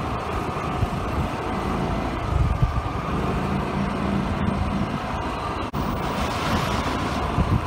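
Road vehicle on the move: a steady low engine and road rumble, with an engine hum standing out for a couple of seconds in the middle and a rise in rushing noise after about six seconds.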